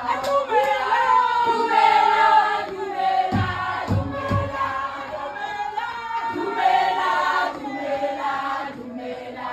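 A group of women's voices singing a celebration song together in several parts. A few low thumps come about three and a half to four and a half seconds in.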